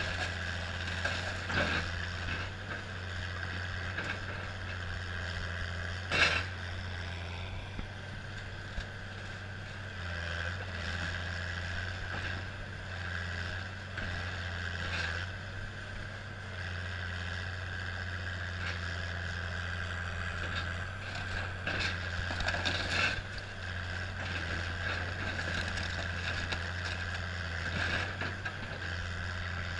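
Link-Belt tracked excavator's diesel engine running with a steady drone while it pulls down a wooden house, with a few sharp cracks and crashes of breaking timber and debris, the loudest about six seconds in and a cluster near the three-quarter mark.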